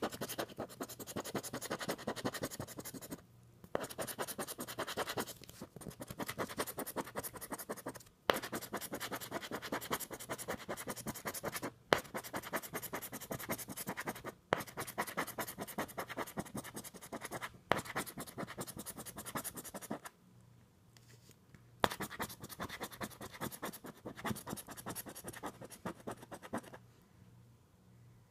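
Scratch-off lottery ticket being scratched in quick back-and-forth strokes, in runs of a few seconds broken by short pauses, to uncover the play spots under the coating.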